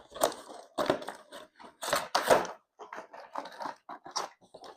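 Packaging being handled and torn open, rustling and crinkling in irregular bursts, loudest about two seconds in.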